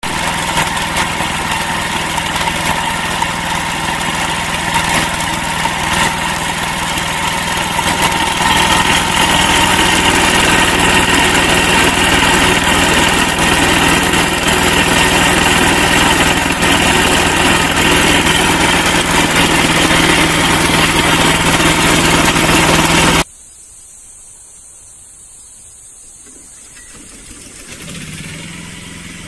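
Small engine of a grass-cutting machine running steadily at a constant pitch, getting louder about a third of the way through. It cuts off abruptly near the end, leaving a much quieter background.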